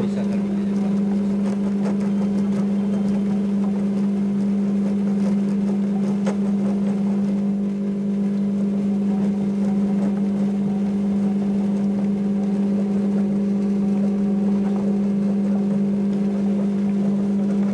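Getra HR6 universal fritter, converted into a durian pulp separator, running steadily: its 950-watt electric motor hums at a constant pitch while it pushes durian flesh out through the sieve.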